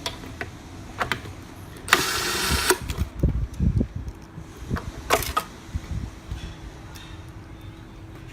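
Plastic clicks and knocks from handling the FUMA M-1000 automatic tape dispenser. About two seconds in there is a short burst of harsh noise lasting under a second, followed by a run of low thumps and a few more clicks.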